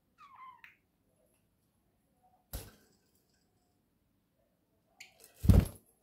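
A budgerigar gives one short chirp at the start. About two and a half seconds in there is a sharp knock, and near the end a louder, deeper thump with a brief rustle.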